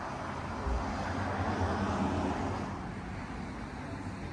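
A motor vehicle passing by, its engine and road noise swelling to a peak about two seconds in and then fading away.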